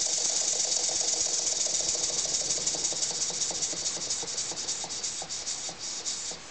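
Model mine engine running on compressed air: a steady hiss of air leaking from its unsealed joints, with a fast, even chuff of exhaust strokes. The strokes slow and fade over the last couple of seconds, and the hiss cuts off just before the end.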